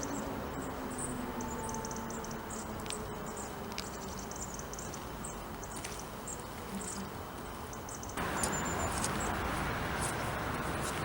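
Outdoor ambience between air-raid siren signals: a distant siren's falling wind-down fades out in the first couple of seconds, and short high bird chirps come and go over a steady rushing noise, which gets louder about eight seconds in.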